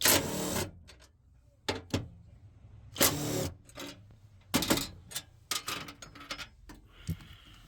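Bolts holding a hybrid car battery being undone with a tool: two short whirring bursts, one at the start and one about three seconds in, with scattered metallic clicks and clinks between and after them.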